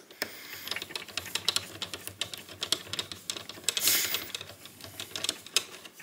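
Screwdriver turning the long cylinder fixing screw through a mortice lock's faceplate into a euro cylinder, giving rapid, irregular metallic clicking and scraping.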